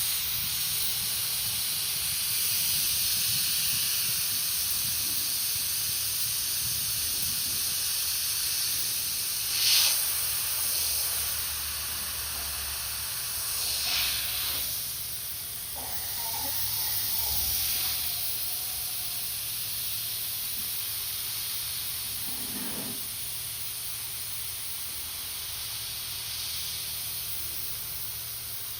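High-pressure air hissing steadily from a PCP airgun regulator setup. There are short louder spurts of hiss about ten and fourteen seconds in.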